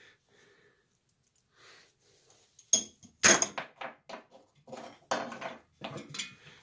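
Clinks and clatters of small hard chandelier parts (the removed old socket hardware and candle cup) being handled and set down on the workbench. A run of sharp knocks starts about three seconds in, the loudest just after it starts, with lighter clicks following.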